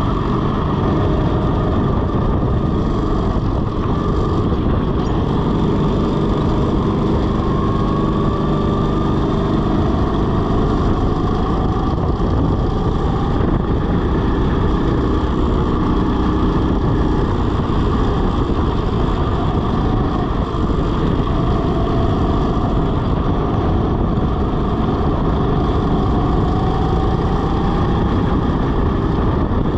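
Rental go-kart at racing speed: its motor runs hard under a heavy, steady rumble, and its pitch climbs slowly a few times as the kart accelerates.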